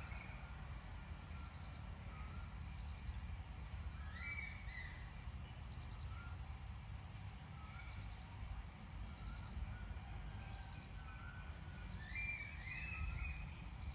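Outdoor ambience: birds calling, a couple of times about four seconds in and again near the end, with short high chirps repeating about once a second, over a steady low rumble.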